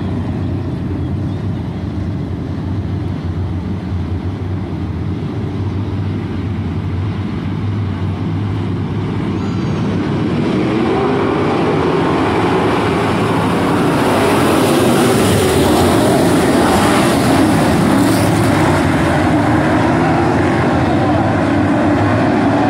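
A field of street stock race cars' V8 engines running around a dirt oval as a continuous mixed engine noise, growing louder about ten seconds in.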